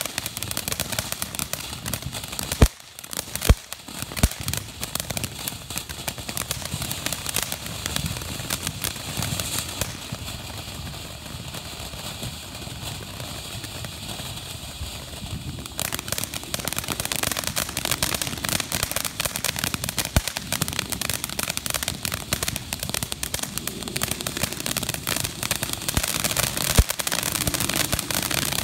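Ground fountain firework spraying sparks with a continuous hiss and dense crackling. A few sharp pops come about three seconds in; the crackling thins out in the middle and comes back denser and louder about sixteen seconds in.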